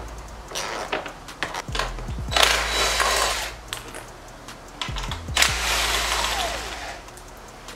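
Ratchet wrench clicking in quick runs as it backs out the bolts holding a Yamaha YZ250F's plastic side number plate, with two rustling, scraping stretches of plastic as the panel is handled.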